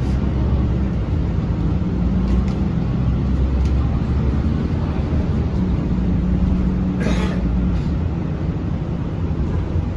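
Mercedes-Benz OC500LE bus engine and drivetrain droning steadily, heard from inside the passenger cabin, with a short burst of noise about seven seconds in.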